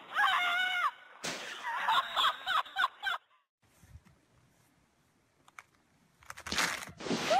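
Shrill yelling over a rush of wind noise, cut off abruptly about three seconds in. Then near quiet with a few faint clicks, and a loud rough noisy burst near the end.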